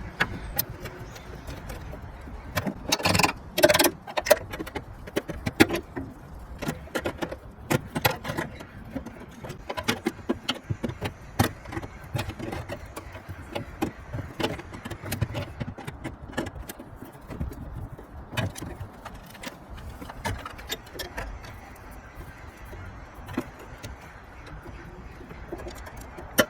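Irregular metal clinks, clicks and rattles of hand tools on the water and gas line fittings of a tankless water heater being disconnected, with a burst of louder clanks about three seconds in.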